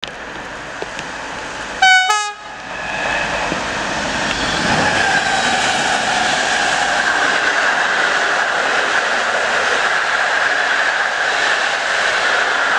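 An electric passenger train sounds its horn in one short, loud blast about two seconds in, then runs past with a steady rumble of wheels on the rails and a faint high tone.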